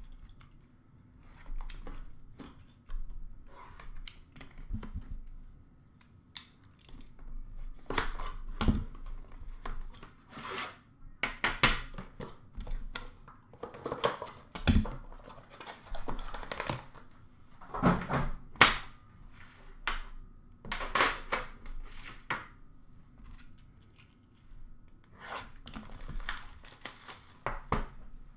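Irregular tearing, rustling and knocks as a hockey card box is unwrapped and opened, and the metal tin inside is lifted out and set down.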